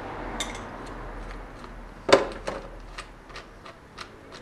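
Ratchet and 14 mm socket clicking and metal clinking as a bolt is worked loose on a motorcycle's rear footpeg bracket, with one sharp metal clink about two seconds in.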